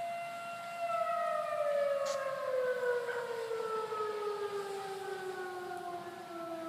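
Outdoor warning siren holding a steady wail, then winding down from about a second in, its pitch falling slowly and steadily.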